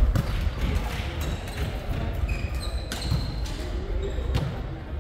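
Volleyball being played in a large echoing sports hall: the ball is struck several times with sharp smacks that ring on, about three seconds and four and a half seconds in among them, and sneakers squeak briefly on the wooden court.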